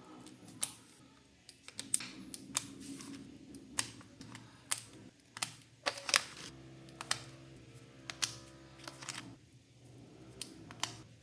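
Akko Cream Blue mechanical keyboard switches being pressed one by one into the Akko ACR64's plate and hot-swap PCB, each seating with a sharp click, about a dozen at uneven intervals.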